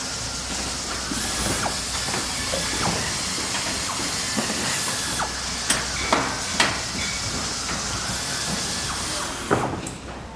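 Factory machinery ambience: a steady hiss of running machines with scattered sharp metallic clanks and knocks, several loud ones in the second half. The din drops off sharply near the end.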